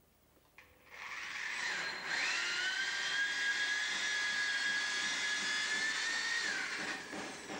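Corded drill running a hole saw into a wall board. The sound builds about a second in and settles into a steady high whine, which drops in pitch and fades as the drill stops near the end.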